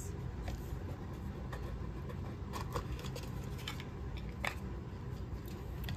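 Small box being opened and handled on a table: a few faint scattered clicks and rustles of cardboard and wrapping over a steady low hum.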